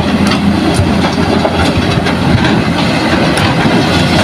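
Hitachi hydraulic excavator's diesel engine running steadily under load as it digs, with scattered sharp knocks and scrapes over it.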